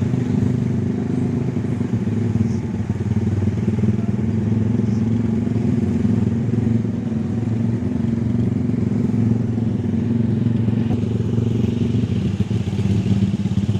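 Honda Tiger motorcycle's single-cylinder four-stroke engine running steadily, its pitch holding even with no sharp revving.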